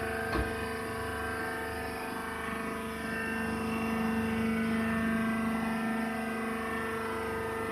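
Wood-shaving baler machine running with a steady mechanical hum that swells a little in the middle. There is a short knock near the start.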